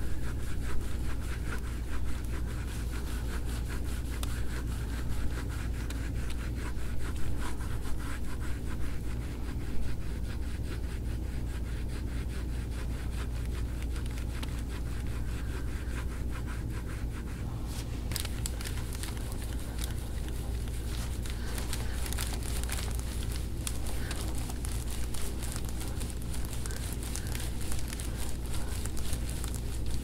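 Gua sha tool and hands scraping and rubbing across oiled skin in repeated strokes, over a steady low hum.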